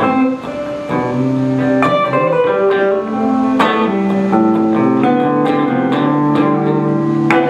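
Two electric guitars played together through small amplifiers, an instrumental passage with no singing. Chords are struck every second or two over held and picked notes.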